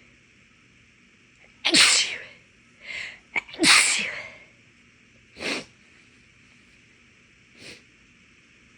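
A woman sneezing twice, big and loud, about two seconds in and again two seconds later, with a shorter breath sound just before the second and two quieter breath sounds after. The sneezes were partly induced, in a nose the uploader thinks was irritated by cleaning-product scent and dust.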